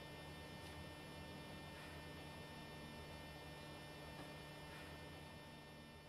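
Low, steady electrical mains hum with a thin buzz from the recording chain, with a few faint scratches of a pen writing on paper.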